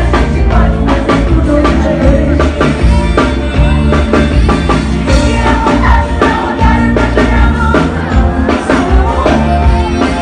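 Live band music with a steady drum beat and a lead vocal singing over it.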